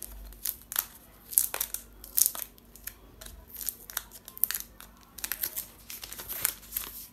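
Thin plastic protective film being peeled off a new smartphone, crinkling and crackling in quick irregular rustles.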